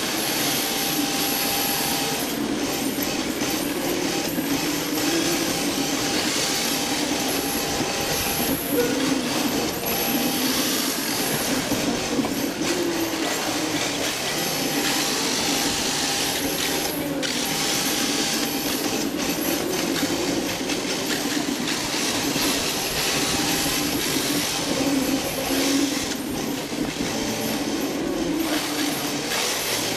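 Onboard sound of an electric rear-wheel-drive RC drift car: the motor and drivetrain whine, rising and falling in pitch as the throttle changes through the drifts, over a hiss from the hard drift tyres sliding on the smooth floor.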